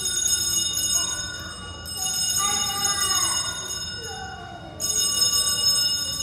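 Altar (sanctus) bells rung, striking about two and five seconds in, each a bright cluster of high ringing tones that slowly dies away. They mark the elevation of the chalice after the consecration.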